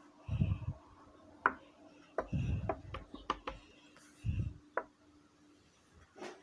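Handling noise from a smartphone held in the hand: three short low rubbing thumps and about half a dozen sharp clicks and taps scattered through, over a faint steady hum.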